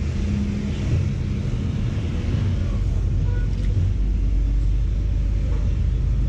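Steady low rumble of a motor vehicle, its lowest part growing stronger about two and a half seconds in.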